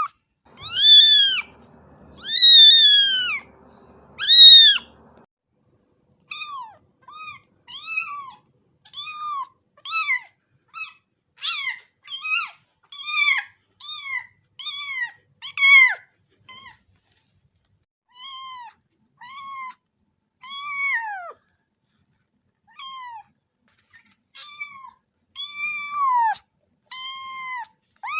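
Cat meowing over and over in short, rising-and-falling calls. Three louder meows come in the first few seconds, then a run of shorter, quieter meows at about one or two a second, with brief pauses.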